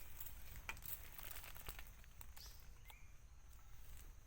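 Faint outdoor ambience: a few short, high rising chirps and scattered light clicks over a steady high hum and low rumble.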